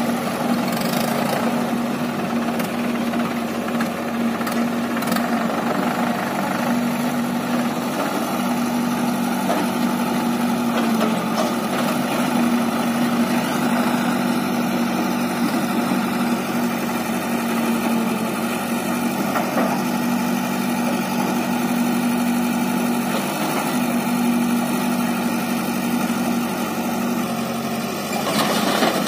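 Diesel engines running steadily at idle, chiefly the Mahindra 575 DI tractor's four-cylinder 2730 cc diesel with the backhoe loader's engine behind it. A brief louder rush of noise comes near the end.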